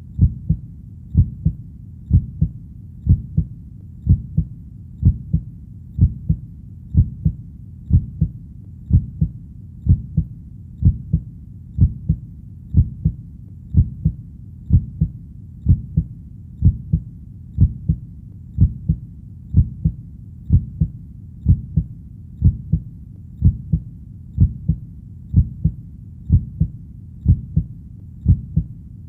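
Steady heartbeat, a low double thump (lub-dub) repeating at an even pace of about one beat a second.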